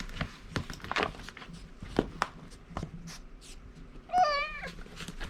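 A cat meows once about four seconds in, a single wavering cry, over scattered light clicks and knocks.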